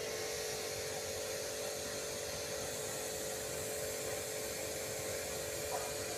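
Clif Max domestic electric car washer (pressure washer) running under pressure, a steady motor-pump hum with the hiss of its water jet spraying from the gun.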